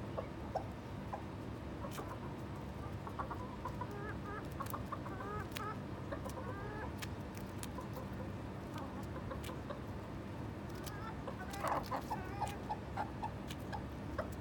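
Backyard chickens clucking in short, soft, bending calls, with a louder bunch of clucks about twelve seconds in. Scattered sharp clicks come from a hen pecking at a lettuce leaf held in the hand.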